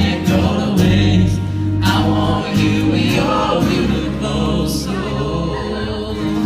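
Live band music with singing: sustained bass notes, drum and cymbal hits, and voices.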